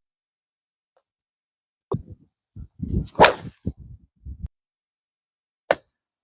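Wind buffeting the microphone in short gusts, with one louder gust about three seconds in. Near the end comes a single sharp crack: a golf club striking the ball.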